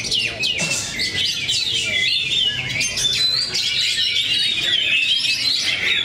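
Many caged oriental magpie-robins (kacer) singing at once against each other in a song contest. The result is a dense, unbroken tangle of high, varied whistles, trills and chirps from overlapping birds.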